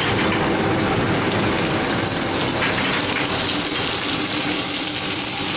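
King scallops searing in hot oil in a frying pan, a steady sizzle with a low, even rush beneath it.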